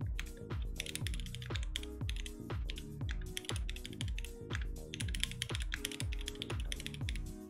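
Rapid typing on a mechanical keyboard, a dense run of key clicks, over background electronic music with a steady deep beat of about two hits a second.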